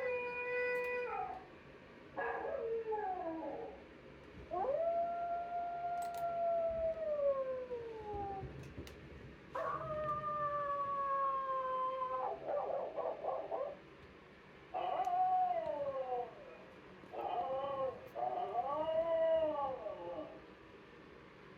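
A recorded dog howling and whining, played back: a series of about seven drawn-out calls, some held and slowly sliding down in pitch, others rising and falling, with short pauses between them.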